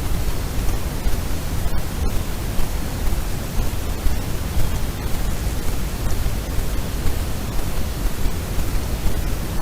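Steady, loud hiss with no distinct sound standing out, heaviest in the low end. It cuts out for an instant twice, about two seconds in.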